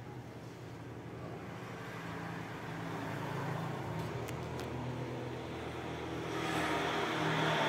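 A road vehicle passing: a low engine hum under a rush of noise that swells louder toward the end.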